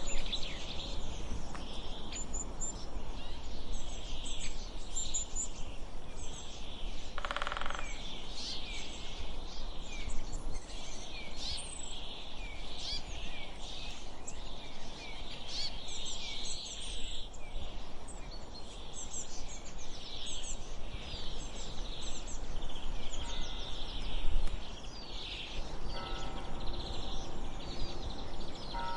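Many small birds chirping busily over a steady low background rumble, with a brief pitched tone about seven seconds in and faint steady tones near the end.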